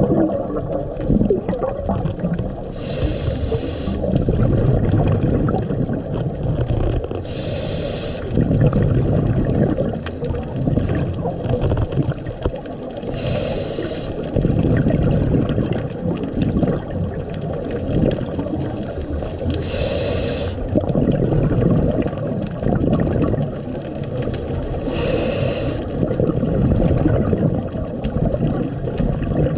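Scuba diver breathing through a regulator underwater: five hissing inhales about every five to six seconds, each followed by the low bubbling rumble of an exhale.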